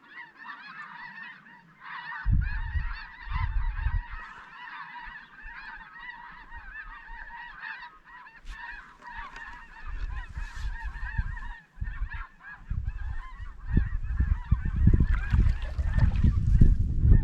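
A high, distant flock of geese calling continuously, many overlapping calls that sound like little chirping birds. Gusts of wind rumble on the microphone about two seconds in and again over the last few seconds, louder than the geese.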